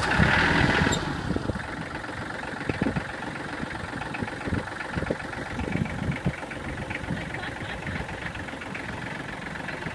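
Kubota compact diesel tractor engine idling steadily, with a louder rushing noise in the first second.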